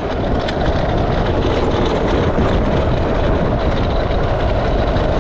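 Gravity kart's knobbly tyres rolling fast over loose slate gravel: a loud, steady crunching rumble.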